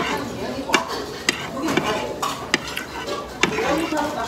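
Stainless steel spoon and chopsticks clinking and scraping against a ceramic plate of noodles while eating, with about five sharp clicks spread through.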